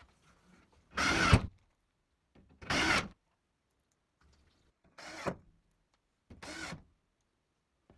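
Cordless drill driving drywall screws through plasterboard into a metal stud: four short bursts of motor whine, each about half a second, the last two quieter.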